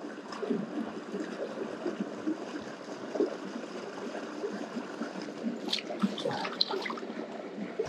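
Shallow mountain stream running over rocks: a steady trickling, gurgling wash of water, with a few brief ticks about six seconds in.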